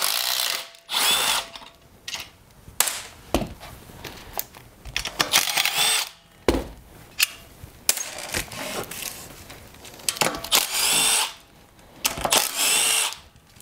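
Milwaukee Fuel cordless driver spinning 10 mm bolts out of a Honda mower engine's sump cover in about five short bursts, its motor whine rising and falling. Small metal clicks and knocks come between the bursts.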